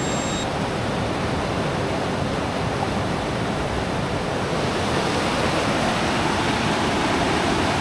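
Fast, shallow stream rushing over rocks and small rapids: a steady rush of water.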